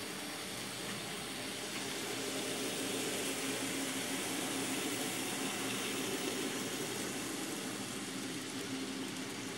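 Model train of diesel locomotives and boxcars rolling along the layout track: a steady whirring rumble of wheels and motors, a little louder from about two seconds in as it passes close.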